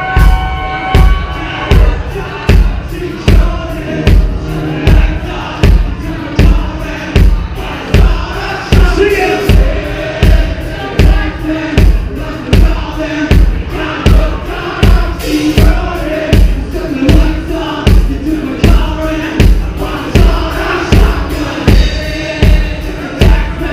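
Live rock band playing loud through the venue PA, with drum kit and electric guitar and a steady heavy kick-drum beat, while the crowd shouts along.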